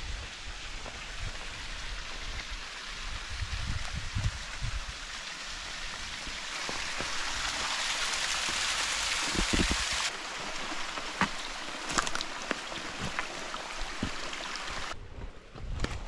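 Steady hiss of water with scattered drips and clicks. The hiss grows louder abruptly about six and a half seconds in and drops back about ten seconds in.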